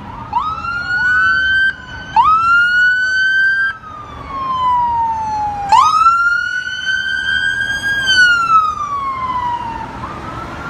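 Police car siren: a rising whoop that cuts off sharply, then two long wails that each climb quickly, hold and slowly fall away.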